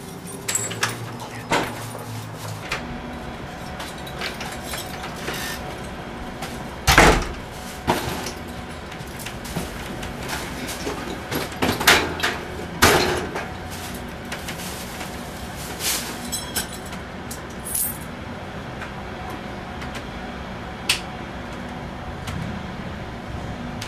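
A handful of sharp knocks and clunks over a steady hiss, the loudest about seven seconds in and again around twelve to thirteen seconds in.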